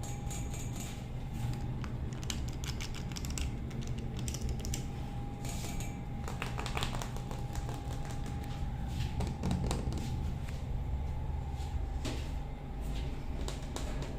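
Irregular ASMR-style tapping and clicking by fingers, in quick clusters of short taps, over the elevator cab's steady low hum.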